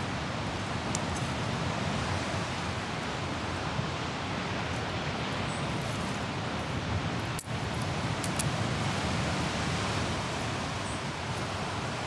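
Steady rush of ocean surf on a beach, with a few faint ticks and pops from a small kindling campfire that is just catching.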